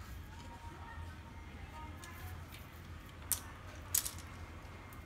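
Two sharp clicks about two-thirds of a second apart, near the end, from handling the plastic and metal parts of a laser printer's fuser unit during disassembly, over a steady low hum.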